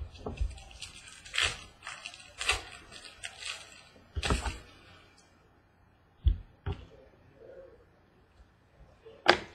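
Baseball trading cards being handled and sorted by hand: a quick run of rustles and flicks as cards slide over one another, then a few sharp light knocks later on.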